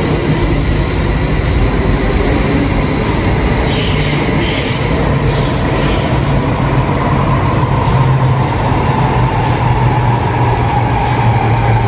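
Train running: a steady loud rumble with a low hum, and a whine that slowly falls in pitch from about eight seconds in. A few short hissing sounds come about four to five seconds in.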